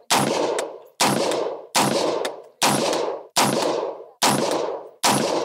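AR-15 pistol with a 10.5-inch barrel firing 5.56 Norma 62-grain ammunition in steady semi-automatic fire. Seven shots come about one every 0.85 seconds, each ringing out in an echoing tail for about half a second.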